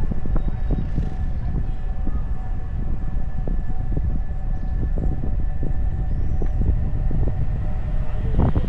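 Wind buffeting the microphone of a moving car, a heavy low rumble with uneven gusts, with a faint steady tone held underneath.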